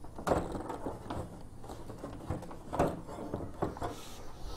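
About half a dozen light clicks and knocks at uneven intervals: hand tools and metal parts being handled while fasteners are removed by hand on a lawn tractor engine.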